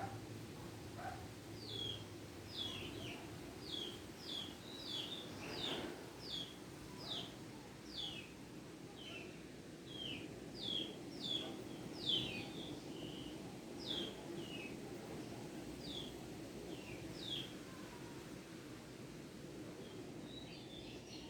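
A sleeping pet snoring with a steady low rumble, while a small bird chirps repeatedly in short, downward-sliding tweets. The chirps are the loudest sound and stop a few seconds before the end.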